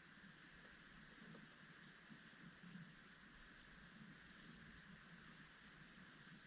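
Near silence: a faint, steady outdoor hiss, broken by a single brief high-pitched chirp near the end.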